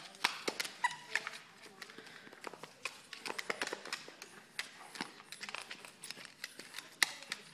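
Shih Tzu wriggling and rolling on a wooden floor: irregular scuffling and clicking sounds, with a few short grunts near the start.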